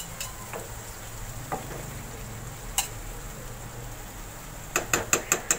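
Fried onion-tomato masala sizzling gently in a nonstick wok, with a few light clicks. Near the end a quick run of sharp taps as a steel spoon knocks against the pan while yogurt is added.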